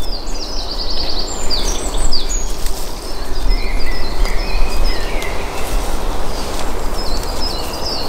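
Songbirds chirping in short, quickly repeated high phrases, a few times, over a loud, continuous rough noise with a low rumble.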